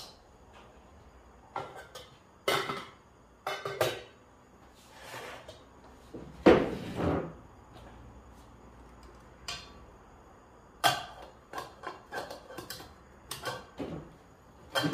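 Dishes and cookware clattering as they are handled and set down on a wooden table: scattered knocks and clinks, the loudest about six and a half seconds in, with a quick run of small clinks near the end.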